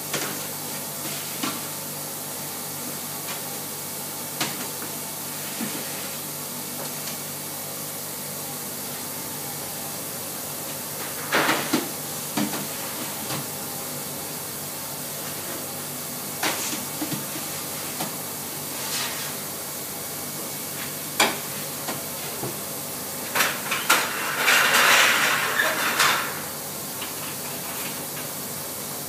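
Steady hiss and hum of a commercial bakery's deck ovens and extractor hood, broken by scattered short clatters of metal baking trays and the bread peel as loaves are loaded into the ovens. Near the end comes a louder rasping clatter lasting about two seconds.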